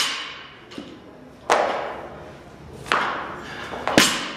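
Loaded barbell with bumper plates hitting and clanking during a lift and then dropped to the rubber gym floor. There are three sharp hits, about a second and a half, three and four seconds in, each with a short metallic rattle of the plates. The last, as the bar lands and bounces, is the loudest.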